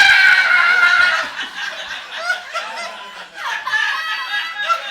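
A loud, shrill held vocal note that sags slightly in pitch and cuts off about a second in, followed by audience laughter.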